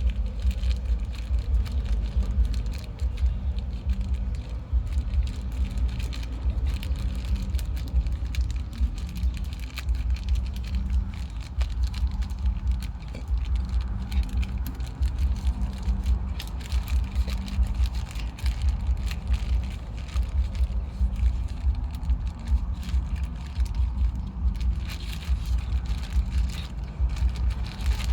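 A low rumble, uneven in level throughout, with a faint crackling hiss above it.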